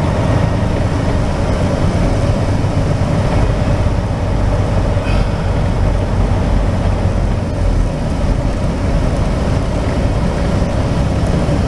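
Semi truck engine running and tyres rolling on a snow-covered road, heard from inside the cab as a steady drone.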